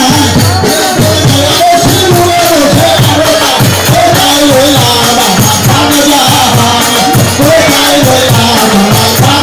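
Loud live devotional music: a drum beating quickly and steadily, each stroke dropping in pitch, under a wavering melody line.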